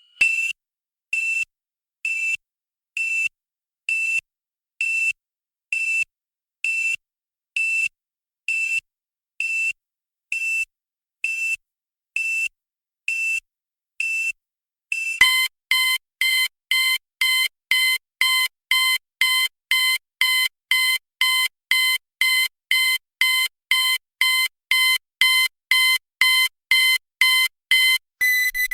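Electronic emergency code alarm beeping. A single high tone pulses about once a second, then about halfway through it switches to a lower, fuller tone pulsing about twice as fast.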